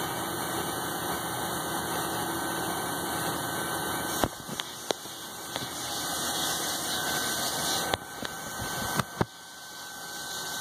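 Steady mechanical hum of shop machinery. Several sharp clicks and knocks come between about four and nine seconds in.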